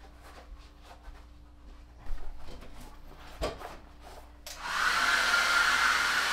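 Hair dryer switched on about four and a half seconds in, blowing with a steady rush of air and a high whine. Before it, faint handling noises and a single knock.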